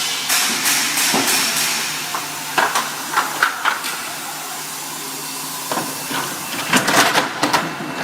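Workshop machine noise: a steady hiss with two clusters of sharp knocks and clanks, the first about two and a half seconds in and the second around seven seconds in.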